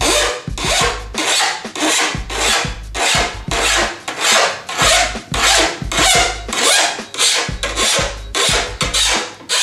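Hand file rasping along the steel edge of a snowboard in quick one-way strokes, about two a second, steady throughout: detuning the edge at the tip and tail so it is dulled and won't catch.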